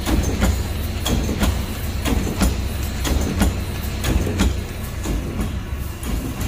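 Automatic wire-mesh welding machine running: a steady low hum with regular mechanical clanks, a pair about once a second, as the machine indexes the mesh and welds the cross wires.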